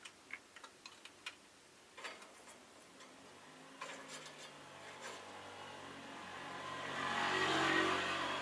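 A motor vehicle passing in the street, its engine growing steadily louder to a peak near the end and beginning to fade. Before it, a handful of short sharp clicks.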